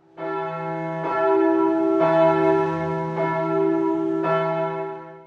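Bells ringing in a slow sequence of about five strikes, each left to ring on into the next, fading out near the end.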